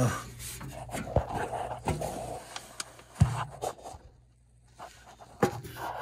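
Rustling and rubbing as hands pull a piece of bag wrapping, twisted up tight, off a furnace blower wheel's shaft, with a few sharp knocks. This wrapping is the cause of the blower's scrubbing noise.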